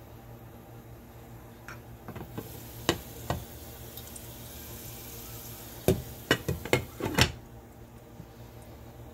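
Avocado oil and popcorn kernels sizzling in a saucepan. The hiss gets louder for a few seconds while the glass lid is lifted off. Two sharp clicks come about three seconds in, and a quick run of louder clicks and taps comes near the end of the open spell.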